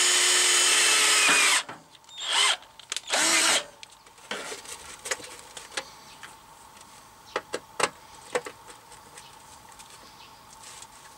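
Cordless drill boring through thin rusty sheet steel, running at a steady pitch and stopping about a second and a half in. Then the sheet metal is handled with scrapes and rattles, followed by several sharp clicks of a hand riveter on the cone's seam.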